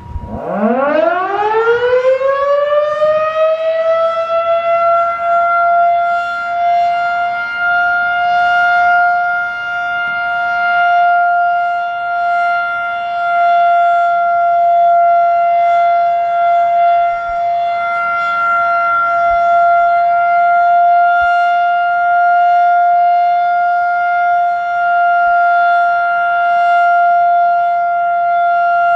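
Federal Sign & Signal Model 5 electromechanical outdoor warning siren winding up from a standstill, its pitch rising steeply over about four seconds, then holding one steady full-alert tone.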